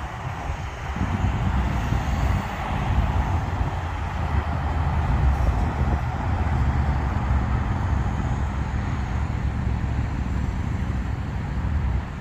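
Continuous road traffic noise, with a fluctuating low rumble of wind on the microphone.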